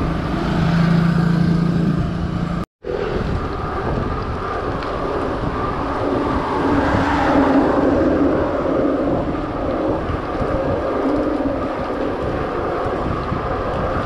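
Wind rushing over the camera microphone together with tyre and road noise from a mountain bike riding on paved road. The sound cuts out completely for a moment a little under three seconds in.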